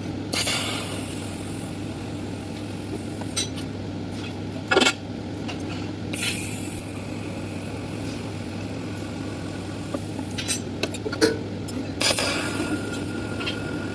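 TIG welding of stainless steel: the welding set hums steadily, with three spells of high hissing from the arc, and scattered sharp clicks and clinks of metal.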